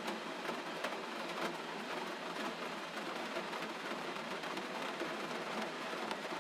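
Steady gentle rain, a dense, even patter of small drops with no thunder or gusts.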